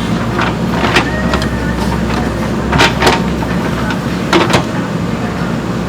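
JCB 3DX backhoe loader's diesel engine running steadily, with sharp clanks about one second in, around three seconds in, and again at about four and a half seconds.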